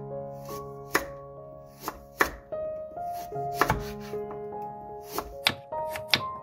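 Knife slicing a raw carrot into rounds on a wooden cutting board: about eight sharp chops at uneven intervals, over gentle background music with sustained notes.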